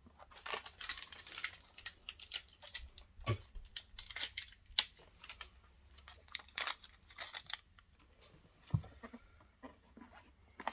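Plastic parts of a desk fan being handled and fitted together: irregular clicks, scrapes and rustles, with a dull knock about three seconds in and another near nine seconds.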